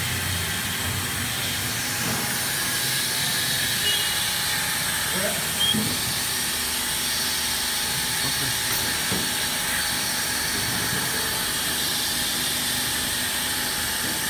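Steady hissing machine noise of a six-nozzle filling machine for 25-litre jerrycans running, with a faint hum under it.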